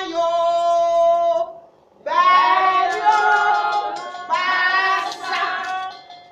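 A woman singing unaccompanied: one long held note, a brief pause, then a run of sung phrases with pitch sliding between notes.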